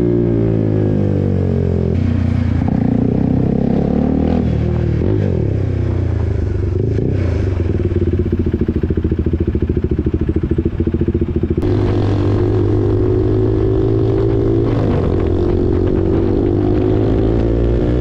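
KTM RC 390's single-cylinder engine through an SC Project aftermarket exhaust, ridden in traffic. The revs fall at the start and rise and fall through the gears. In the middle it runs at low revs with fast, distinct exhaust pulses, then settles to a steady pitch while cruising.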